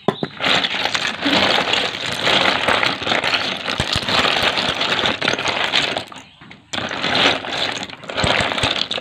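Wet mixed shellfish (clams, cockles and sea snails) clattering and scraping against each other as a hand stirs through them in a plastic basin. The clatter is dense, breaks off about six seconds in, then starts again briefly.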